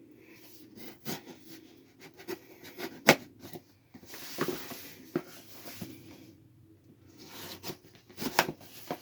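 Cardboard shipping box being handled and opened: a run of knocks and taps with stretches of scraping and rustling, the sharpest knock about three seconds in.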